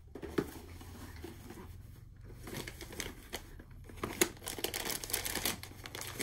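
Packaging being handled while unpacking a box: crinkling and rustling of wrapping with a few sharp clicks, the crinkling busiest near the end.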